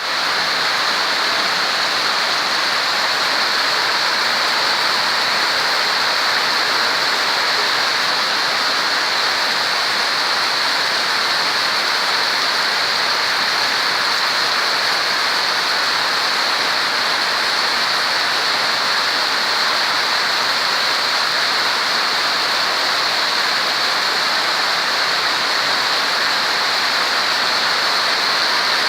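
Rain falling steadily, a continuous even hiss with no pauses.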